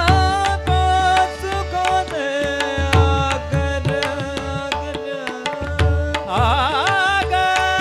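Tabla and pakhawaj drumming a fast accompaniment under a harmonium's held melody notes, with a singer's wavering, ornamented note about six seconds in.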